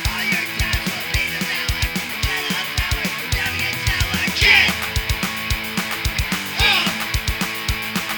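Punk rock band playing a song: guitar over a fast, driving drum beat, with loud accents about four and a half seconds in and again near seven seconds.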